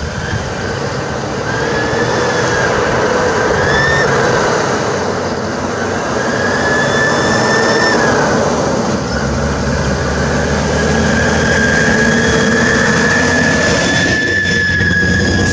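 Lanka Ashok Leyland bus's diesel engine running as the bus drives close by, with a high whine that wavers in pitch and then holds steady in the second half.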